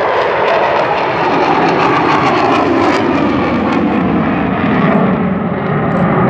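Military jet of the Pakistan Air Force flying low overhead: a loud, continuous jet roar whose pitch sinks slowly as it passes.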